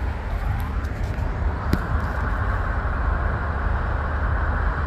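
Steady road traffic noise from cars and trucks on a nearby road, a continuous rumble that grows fuller a little over a second in, with one light tap near the middle.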